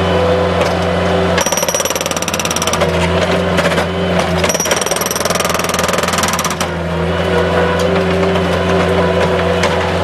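Bobcat skid-steer loader's engine running steadily, with two bursts of rapid machine hammering, each a second or two long, as old driveway concrete is broken up.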